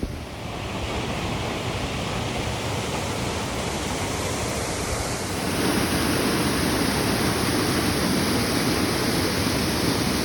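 Steady rushing of flowing water, which gets louder and hissier about five and a half seconds in.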